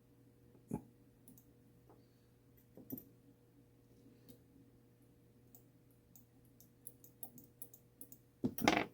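Light clicks and taps of small metal clock-movement parts and tools being handled: scattered single clicks, a quicker run of light clicks about seven seconds in, and a louder brief clatter near the end.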